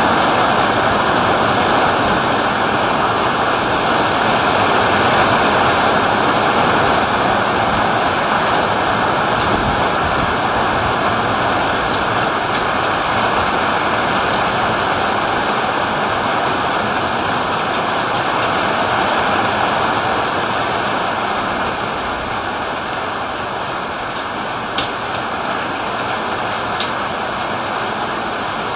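Rain pouring down steadily in a thunderstorm, with two brief sharp ticks near the end.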